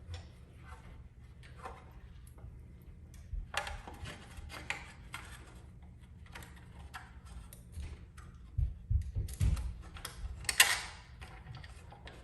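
Irregular light clicks and clanks of things being handled, with a few heavier knocks about nine seconds in and a sharper clatter near the end.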